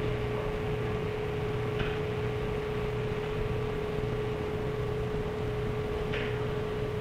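Steady hum with a constant mid-pitched tone under an even hiss, the background noise of an old 1960s film soundtrack, with two faint brief rustles, about two seconds in and near the end.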